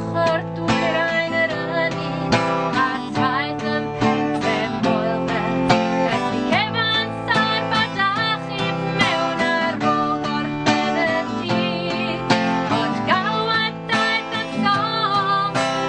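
A woman singing a song in Welsh, accompanied by an acoustic guitar.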